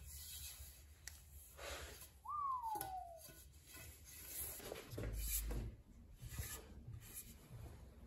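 Faint rubbing and handling noises, with one short squeak about two and a half seconds in that falls in pitch.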